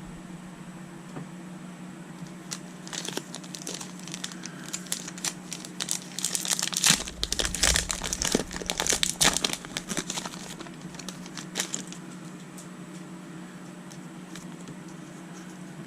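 Pokémon trading-card booster pack's foil wrapper crinkling and tearing as it is opened. The crackling is busiest in the middle stretch and dies away a few seconds before the end, over a steady low hum.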